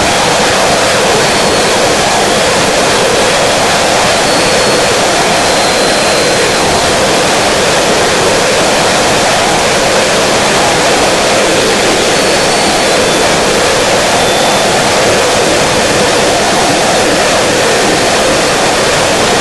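Loud, unbroken wall of harsh noise from a noise-music track: a dense hiss filling every pitch, with a middle band that slowly swells and ebbs.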